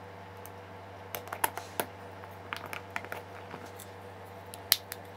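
Light clicks and taps of 3D-printed plastic compressor casing parts being handled and pressed together, in a few scattered clusters over a faint steady hum.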